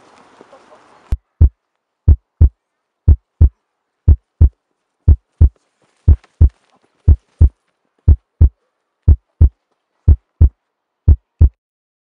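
Heartbeat sound effect: deep paired lub-dub thumps, about one beat a second, starting about a second in.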